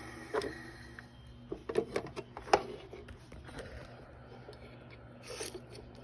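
Hands handling the metal casing and parts of a vacuum cleaner: a scatter of sharp metal clicks and knocks, bunched about one and a half to two and a half seconds in, with a short scrape near the end.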